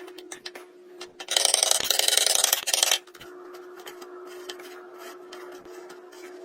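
A tool rasping against wood in one loud, gritty stroke of under two seconds, starting about a second in. Lighter scratching continues over a steady low hum.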